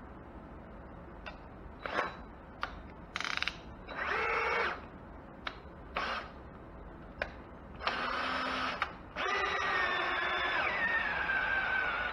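Cordless drill turning the input shaft of a Cub Cadet hydrostatic transmission to test it. It runs in short trigger bursts, then in one longer run near the end whose pitch sags partway through.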